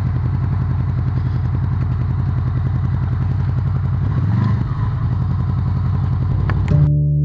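Motorcycle engine running at low speed as the bike rolls in to park, with a brief change in its sound about four seconds in. Near the end it cuts suddenly to plucked guitar music.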